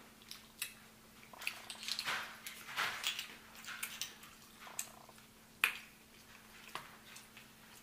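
Close-miked eating sounds: wet smacking and sucking while picking shellfish from a seafood boil, with short clicks of shells and a sharp click about five and a half seconds in.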